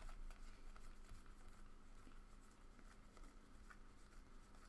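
Faint flicking and rustling of 2017 Panini Contenders football trading cards as they are slid one by one through a stack in the hands, a loose string of soft ticks over a faint steady hum.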